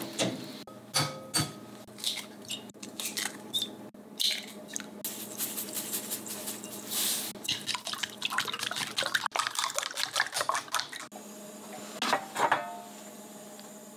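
Kitchen prep sounds: wet napa cabbage leaves rustling and dripping in a metal colander in a sink, then irregular taps and clinks. About eleven seconds in a steady hum starts, with a cluster of sharp clicks just after.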